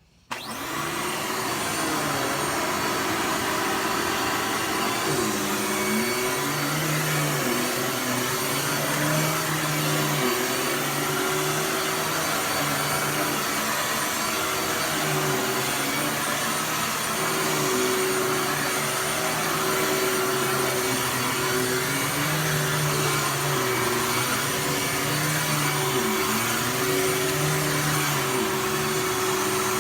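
Dirt Devil Ultra Vision Turbo upright vacuum cleaner switched on, its motor spinning up to full speed within about a second. It then runs steadily, with a high whine over the airflow and a lower hum that keeps wavering up and down.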